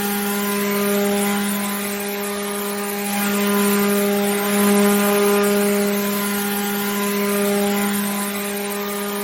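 Water pump's motor running steadily: a constant hum with a row of overtones over an even hiss.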